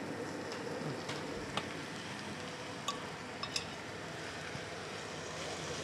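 Raw chicken breast strips going into a stainless steel frying pan of onion and garlic and frying with a low, steady sizzle, with a few sharp clinks of a utensil against the plate or pan.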